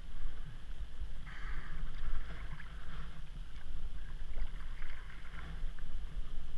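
Kayak paddle strokes, the blade dipping and pulling through calm sea water in two splashy stretches, over a steady low rumble of wind on the microphone and water against the hull.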